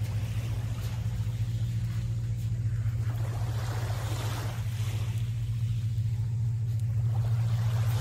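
Small waves washing up on a sandy beach, swelling about three seconds in and again near the end, over a steady low drone that runs throughout.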